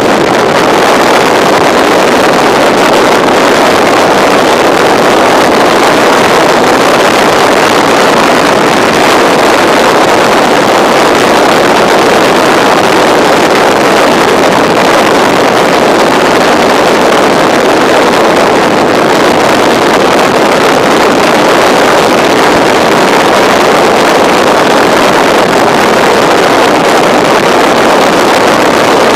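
Onboard sound of a BMW F650 motorcycle at road speed: a loud, steady rush of wind over the microphone, with engine and road noise blended in and no separate engine note standing out.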